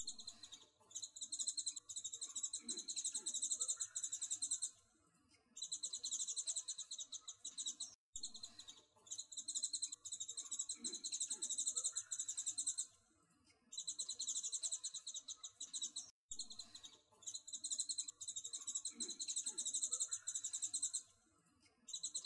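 A looped recording of high, rapidly pulsing trills, like a chirping insect or bird, in bursts of about four seconds with short breaks; the same eight-second stretch repeats about three times.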